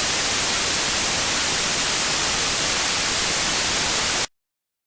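Television static: a steady, loud white-noise hiss, as from an analogue TV tuned to no station, that cuts off suddenly about four seconds in.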